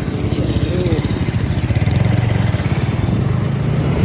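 Motorcycle engine running steadily as the bike rides along, a continuous low rumble.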